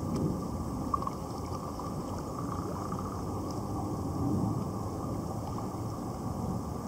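Kayak being paddled across a lake: water washing and gurgling against the hull and paddle, a steady, dull sound.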